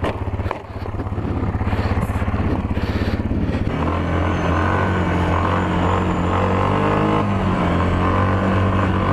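Yamaha Kodiak ATV's single-cylinder four-stroke engine running steadily. From about four seconds in it pulls harder as the quad gathers speed, its pitch rising and falling.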